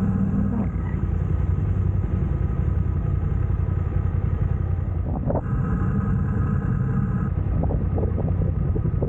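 Motor vehicle engine running steadily with a low road rumble, its tone shifting slightly about five seconds in.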